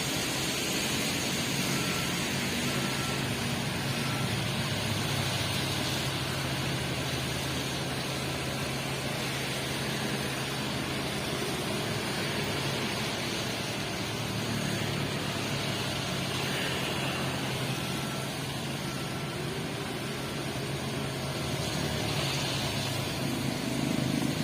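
Diesel engine of working heavy machinery running steadily, its low hum swelling and easing several times.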